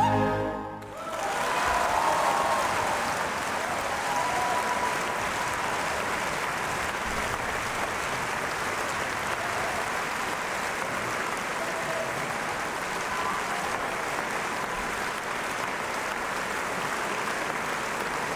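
Large concert-hall audience applauding steadily at the end of an opera aria. The applause starts about a second in as the orchestra's final chord dies away, then holds at an even level.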